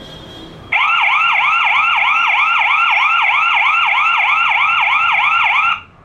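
Hikvision DS-2CD1043G2-LIUF/SL security camera's built-in "Siren" warning sound, played as a test of its audible alarm output. It is an electronic siren whooping up and down about three times a second, starting abruptly just under a second in and cutting off just before the end.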